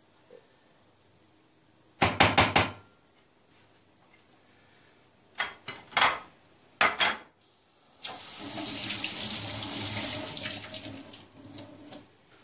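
A plastic box grater knocked several times in quick succession on a hard surface to shake out grated potato, two rounds of knocks; then a kitchen tap runs into the sink for about three seconds.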